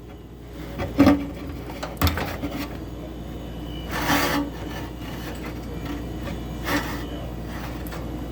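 Hands working on a washing machine's switch wiring: a sharp click about a second in, a knock at two seconds, then a longer scraping rub around four seconds and a shorter one near seven, over a faint steady hum.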